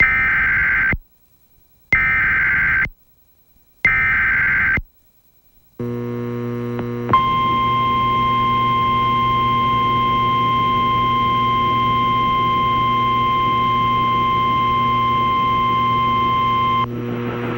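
Emergency Alert System activation: three short bursts of warbling digital header data, each about a second long and two seconds apart. Then a mains hum comes in, and a steady single-pitch attention tone sounds over it for about ten seconds. When the tone stops, the hum carries on.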